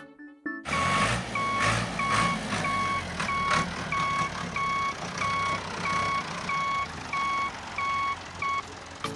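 Vehicle reversing alarm beeping steadily, about three beeps every two seconds, over a low engine rumble that starts a little under a second in.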